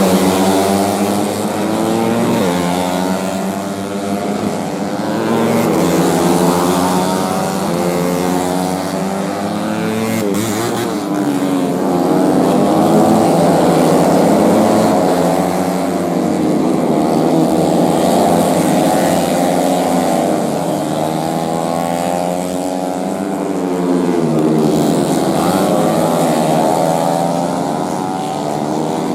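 Several four-stroke underbone race motorcycles running hard at high revs, their overlapping engine notes rising and falling in pitch.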